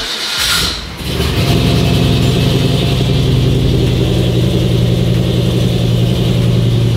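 Turbocharged Chevy single-cab truck's engine starting: after a brief noisy second it fires and settles into a loud, steady idle.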